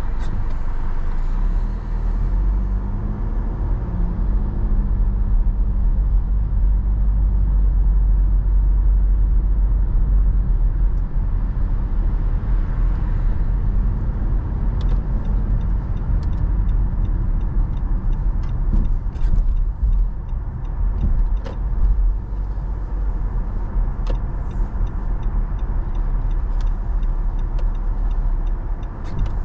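Car driving, heard from inside the cabin: a steady low engine and road rumble, the engine note rising as the car pulls away from the lights about two seconds in. Occasional short clicks and knocks in the second half.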